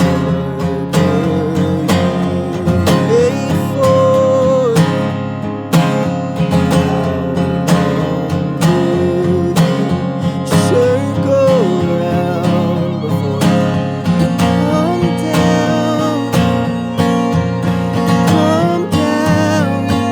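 Acoustic guitar strummed in a steady rhythm, with a wavering melody line held above it: a wordless instrumental stretch of a folk song.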